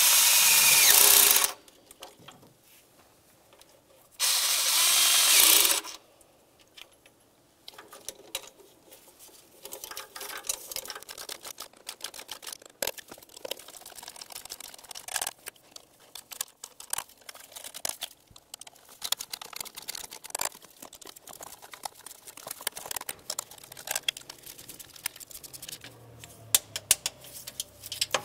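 A power tool on a socket extension spins down the ignition coil mounting bolts, which also clamp the intake manifold, in two short runs of a second or two each. After that come light scattered clicks and rattles of hands handling tools, wiring and engine parts.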